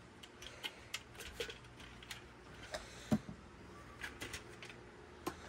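Light clicks and taps of hard plastic being handled, with one duller knock about three seconds in: a Dyson V15 cordless vacuum's clear dust bin being fitted onto the vacuum.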